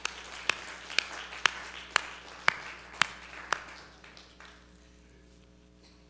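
One person clapping steadily, eight sharp claps about two a second, over softer scattered applause-like noise; the claps stop about three and a half seconds in and the noise fades soon after.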